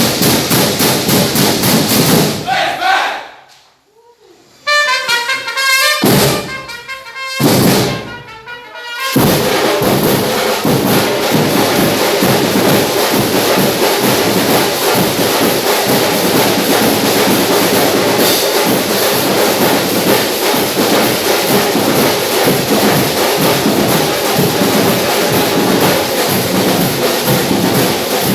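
Street marching band (fanfarra) playing brass and drums. About three seconds in the music breaks off, and a few short separate blasts follow. From about nine seconds in the full band plays on steadily over a dense drum beat.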